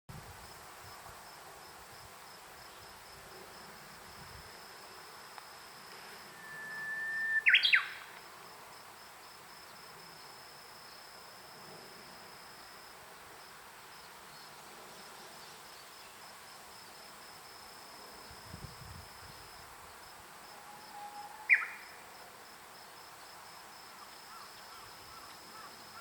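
Japanese bush warbler (uguisu) singing its 'hoo-hokekyo' song twice: a long held whistle ending in a quick, sharp flourish about seven seconds in, then a shorter low note and flourish about twenty-one seconds in. A thin, steady, high-pitched trill runs on and off behind it.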